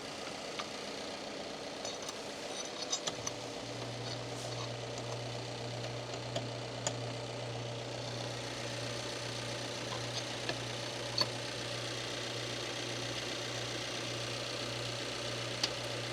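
Subaru Impreza's 2.0-litre flat-four engine idling steadily under the open hood, with scattered light metallic clicks as the battery hold-down clamp is fitted and tightened. A steady low hum joins about three seconds in.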